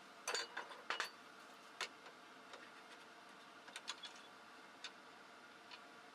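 Irregular light clicks and taps of small hard objects being handled, with two quick clusters in the first second and near the fourth second, over a faint steady hiss.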